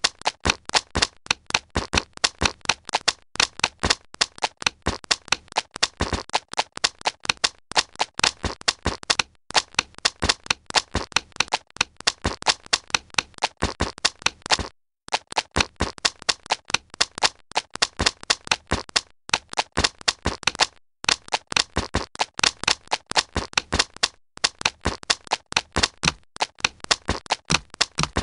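Footsteps: a rapid, uneven run of sharp taps, several a second, broken by a few short silences.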